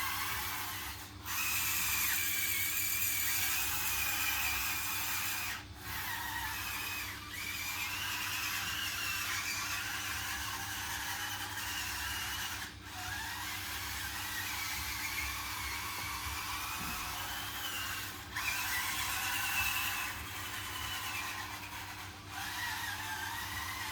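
Small electric drive motors and gearboxes of a 1/16 scale RC bulldozer whining as it is driven, the pitch wavering up and down with speed. The whine cuts out briefly about six times as the drive stops and starts again.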